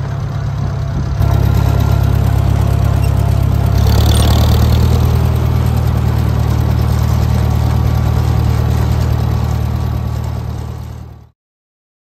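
Antique farm tractor engine running steadily at a low, even pitch, heard close up from on the tractor. The sound cuts off suddenly near the end.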